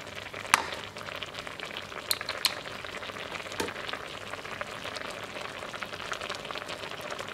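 Beaten egg and broth simmering and crackling in a wok, with a spatula moving through it and a few sharp clicks of the spatula against the wok, one about half a second in and two more about two seconds in.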